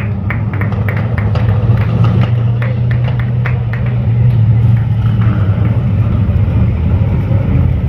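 A line of performance-car engines, Corvettes and Camaros among them, idling and rumbling together with a strong steady low drone. Sharp pops and crackles come through the first half, then the rumble carries on alone.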